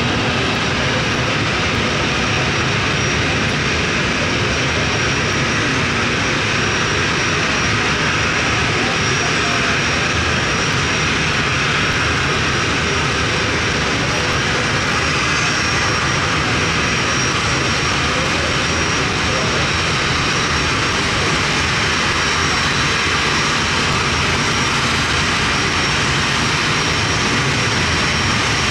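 Boeing 737-300's CFM56-3 turbofan engines running at low taxi power: a steady jet rumble and hiss with a faint high whine.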